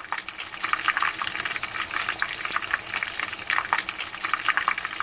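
Hot oil in a large pot sizzling and crackling steadily as potato croquettes deep-fry in it.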